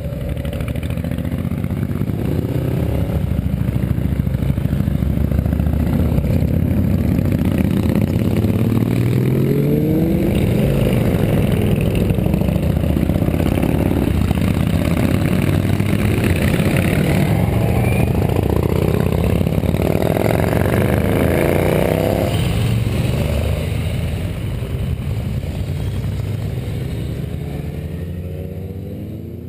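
A procession of motorcycles riding past one after another, their engines overlapping, each engine note rising and falling as the bike accelerates through the turn. The sound thins and fades out near the end.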